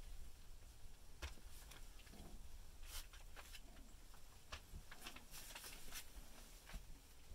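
Faint rustling and scratching as young puppies crawl over a tarp and blankets: a scatter of short, soft scrapes and clicks.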